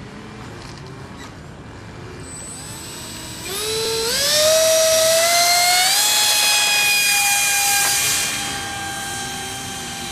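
Electric motor and propeller of a radio-control model glider, with the motor on a pylon above the fuselage, running up for takeoff. A whine rises in pitch in steps from about three and a half seconds in, then holds a steady high pitch and gets quieter near the end as the glider climbs away.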